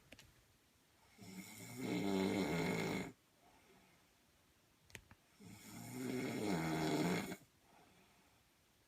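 Snoring: two long snores about four seconds apart, each building up over half a second, holding for about two seconds, then stopping abruptly.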